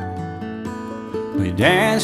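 Country-style music with plucked acoustic strings picking out a melody; a note slides upward near the end.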